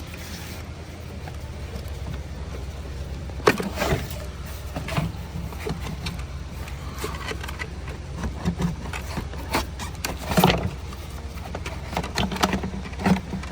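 Hand work on plastic engine-bay parts: scattered knocks and clicks as a component is pulled up and handled, over a steady low background hum.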